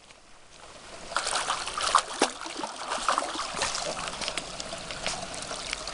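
A hooked pike thrashing at the surface close to the bank: irregular splashing and slapping of water that starts about a second in and keeps on in quick, uneven bursts.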